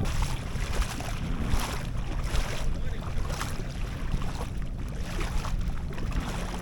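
Wind buffeting a DJI Osmo Action 3 action camera's microphone: a steady low rumble with repeated surges of hiss. Water lapping against the boat sounds beneath it.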